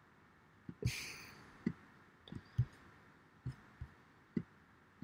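Faint, scattered clicks and light knocks from hands working a computer's mouse or keys, about eight in a few seconds, with a short hiss about a second in.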